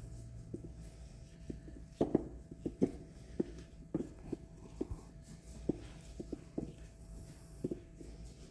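Plastic control-valve head being hand-screwed onto a water-treatment media tank's threads: irregular light clicks and knocks, about one or two a second.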